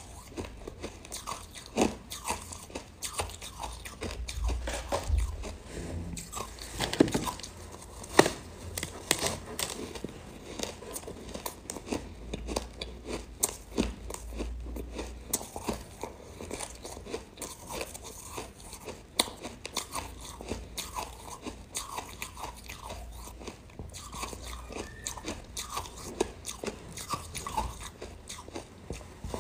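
Biting and chewing a chunk of frozen buckwheat ice: a steady run of crisp crunches, with a few much louder bites.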